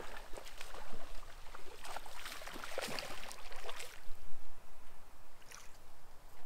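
Irregular water splashing and gurgling around a hooked bass being fought beside a bass boat, with scattered small clicks. Near the end the fish is swung out of the water.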